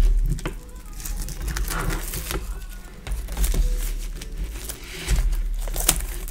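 Plastic shrink-wrap being torn and peeled off a vinyl LP jacket: irregular crinkling and rustling with a few faint squeaks.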